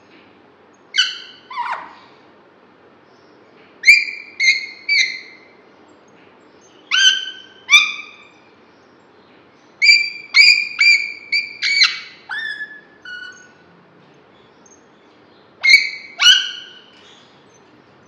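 Alexandrine parakeet calling loudly in short, harsh squawks that drop in pitch at the end, in bursts of two or three, with a quick run of about six calls near the middle.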